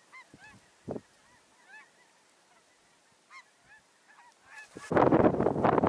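Geese honking faintly, a series of short repeated calls, with a low thump about a second in. Near the end a loud rushing noise sets in and covers them.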